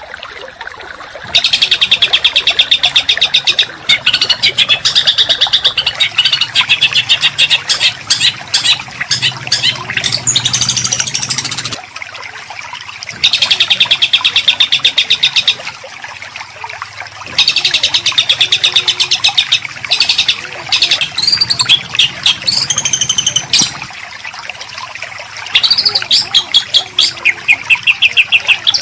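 Recorded songbird song used to tutor caged birds: bursts of rapid-fire, rough repeated notes alternating with varied whistles and sweeping phrases, with short pauses between the bursts.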